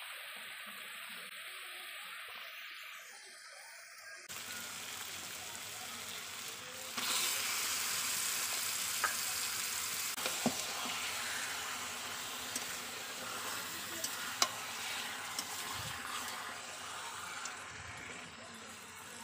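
Spice masala simmering in a pan, then marinated mutton pieces sizzling in the hot masala as they are fried down (koshano), louder from about 7 seconds in. A few sharp clicks of a metal spatula against the pan as the meat is stirred.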